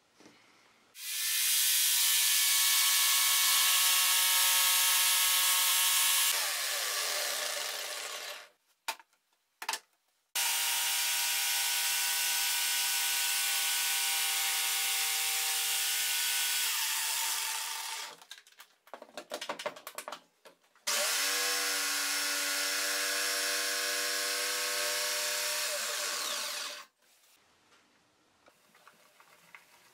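Electric jigsaw cutting a curve in a wooden board in three runs of about five to six seconds each. Each run starts abruptly with a steady motor whine under the rasp of the blade. After the first two runs, the whine falls in pitch as the motor winds down. A few light knocks come between the runs.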